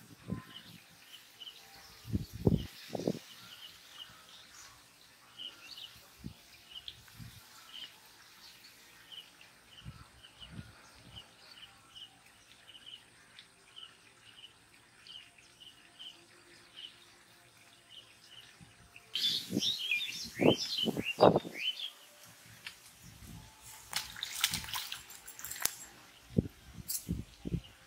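Birds calling: a long series of short chirps repeated roughly every half second, then about two-thirds through a loud burst of rapid, warbling bird calls lasting a couple of seconds. A short noisy rustle follows near the end, with a few low thumps.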